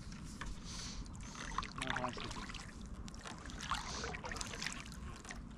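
Water splashing and trickling close by, with irregular small splashes and drips.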